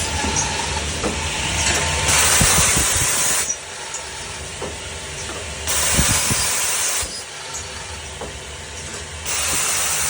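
Automatic CNC hinge drilling, tapping and cutting machine running: a steady low hum with scattered metallic clicks, broken three times by loud hissing bursts, each a second and a half long, about every three and a half seconds.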